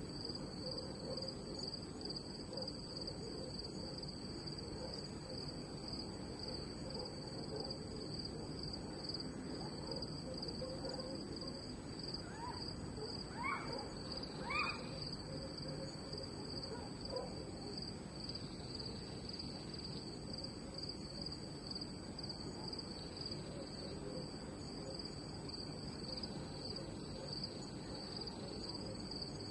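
Crickets chirping steadily in a night ambience, over a soft low hiss. About halfway through, two short rising calls from another animal stand out briefly.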